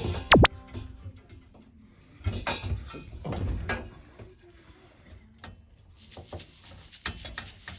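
Irregular knocks, clicks and light rattles of things being handled, the loudest a sharp click about half a second in.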